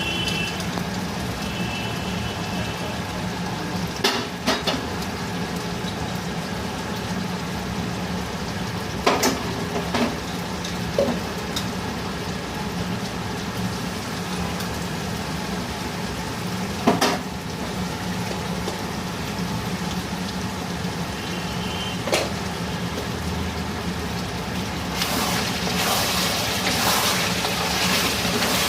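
Food sizzling in a cooking pan over a steady low hum, with a few sharp knocks of a utensil against the pan. It turns into busier stirring and scraping for the last few seconds.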